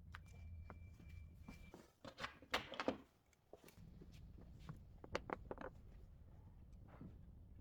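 Scattered clicks and knocks of tools and parts being handled during a jet ski drive overhaul, with a dense cluster about two to three seconds in and a brief steady high tone near the start.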